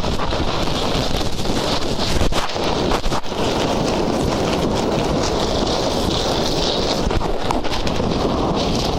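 Wind buffeting a body-worn camera's microphone, a steady rushing noise, with a few short knocks about two to three seconds in.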